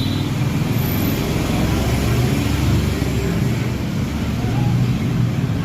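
A steady low mechanical rumble with no distinct knocks or rhythm.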